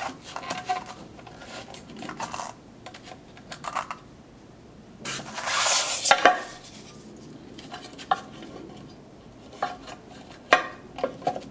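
Hands handling small hard objects: scattered clicks and clinks, with a longer rustling scrape about five seconds in.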